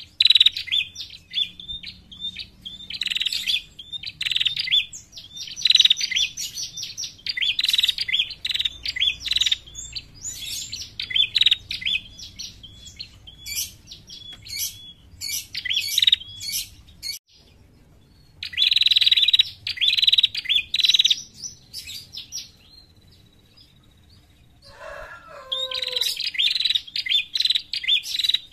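Female prenjak calling: rapid runs of sharp, high chirps in bursts of a second or two, separated by short pauses, the kind of call used as a lure to draw in other prenjak. There is a brief silence about two thirds of the way in, and a few lower, falling notes shortly before the end.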